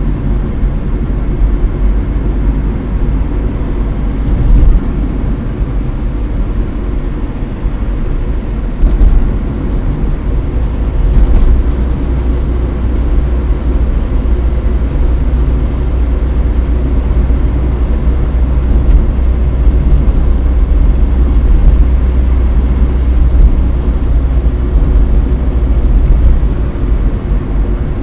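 A car driving, heard from inside the cabin: a steady low rumble of engine and tyres on the road, with a few brief louder bumps.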